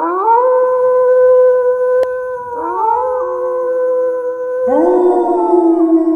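Several long, overlapping howls. Each one slides up and is then held on a steady note, and new howls join about two and a half seconds in and again near the end.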